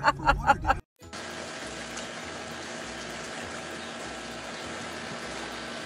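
A voice breaks off under a second in, and after a moment of silence a steady trickling of water in a swimming pool follows, even and without distinct splashes.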